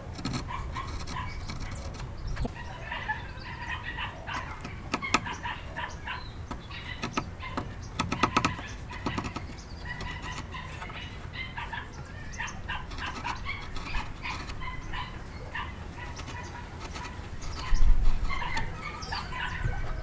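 Steel chisel paring the end of a small wooden block by hand, with short sharp cutting clicks, over chickens clucking in the background. One heavy thump near the end.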